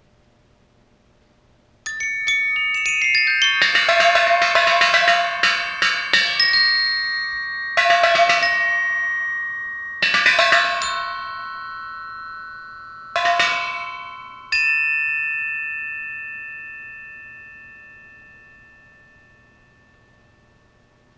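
Glockenspiel struck with mallets: a fast flurry of bright metal-bar notes begins about two seconds in, then four separate chords struck a few seconds apart, the last left ringing and slowly dying away.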